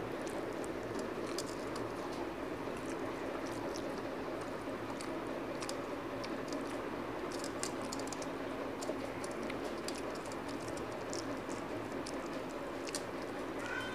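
Close-miked eating sounds: many small wet clicks and smacks from chewing rice and from fingers mixing rice on a steel plate. They sit over a steady low hum.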